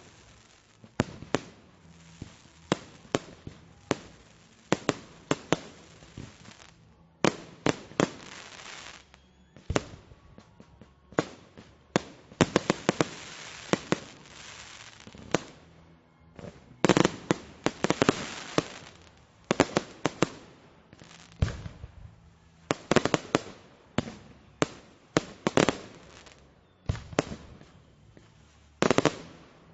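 Fireworks display: a constant series of sharp explosions, often several in quick succession, with stretches of dense crackling between the bangs.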